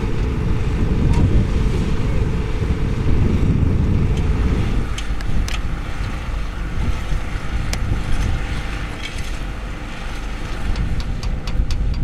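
Diesel road-construction machinery running, a heavy low rumble that drops off abruptly about five seconds in, leaving a lighter engine hum with a few sharp clicks near the end.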